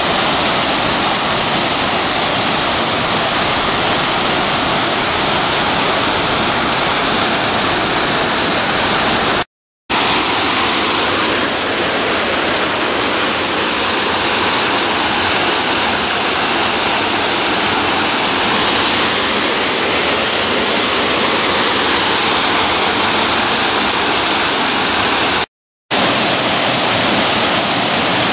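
Waterfall: a steady, loud rush of water falling over rocks, broken twice by brief cuts to silence.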